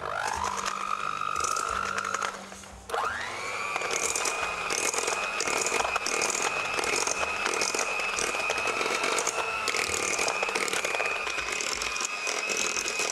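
Electric hand mixer starting up with a rising whine, stopping briefly after about two and a half seconds, then starting again and running steadily. Its beaters rattle and scrape in a stainless steel bowl as they cream butter and sugar.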